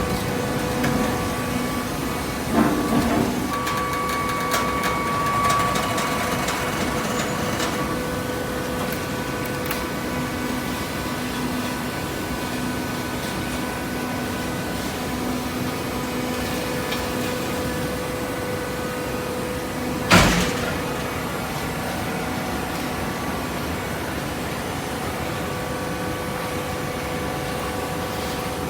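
Hydraulic waste paper baler running: a steady machine hum with a few held tones. There is a knock about two and a half seconds in and one sharp, loud bang about twenty seconds in.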